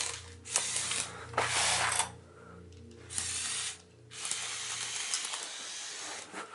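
Power Functions electric motors and plastic gears of a motorized Lego Technic excavator whirring in several short runs. They start and stop as the remote controls are worked to dig.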